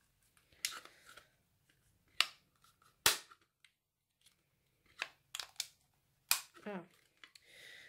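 Hand-held plastic bat-shaped craft punch being handled and pressed: a series of sharp plastic clicks and clacks, the loudest about three seconds in. Its lock latch has been slid shut by mistake, so it cannot punch all the way through.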